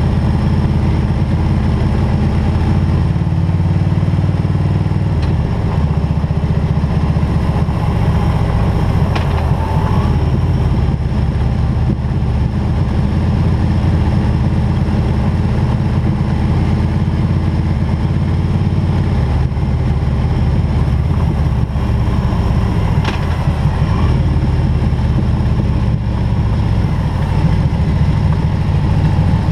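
Harley-Davidson Road King's V-twin engine running steadily as the motorcycle is ridden, its low exhaust note rising and falling slightly in pitch a few times.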